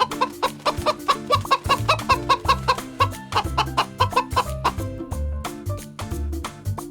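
A chicken clucking in a quick run of short calls, a few a second, over background music with a steady beat.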